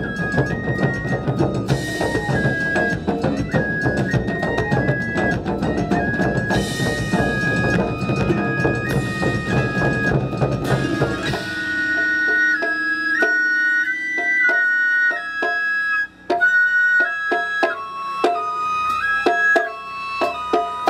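Taiko drums played fast and dense under a high flute repeating a two-note figure. About eleven seconds in the drums stop and the flute carries on alone in a melody.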